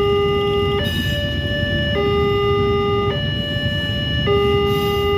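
Railway level-crossing warning alarm sounding its electronic two-tone chime, a lower and a higher note taking turns about every second, while a passenger train passes the crossing with a steady low rumble.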